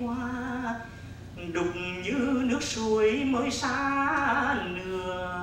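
A man singing a Vietnamese vọng cổ verse in long held phrases with a wide, wavering vibrato.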